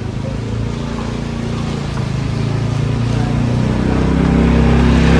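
An engine running steadily and growing gradually louder, like a motor vehicle drawing closer.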